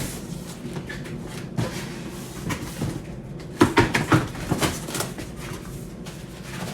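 Knocks and rattles from lighting stand parts being handled and unpacked: a few scattered knocks, then a quick run of sharp knocks about halfway through.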